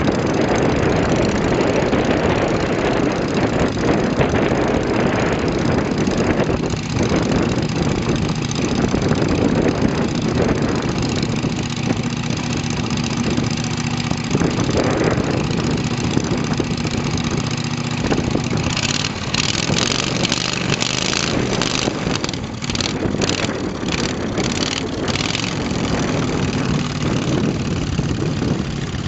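Engine of a home-built Fokker Eindecker replica idling steadily on the ground, propeller turning, with a sound likened to a Harley's.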